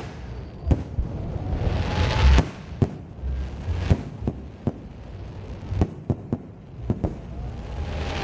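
Aerial fireworks bursting in the sky: a string of sharp separate bangs, about ten of them, with a rushing hiss that swells and fades twice, building again near the end.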